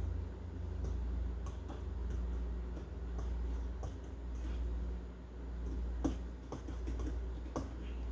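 Fork stirring cheese sauce in a bowl, with light, irregular clicks against the bowl and two louder clinks near the end, over a steady low hum.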